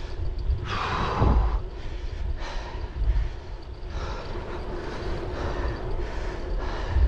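Wind rumbling and buffeting on the microphone, with rolling noise from a bicycle ride, rising in a gust about a second in.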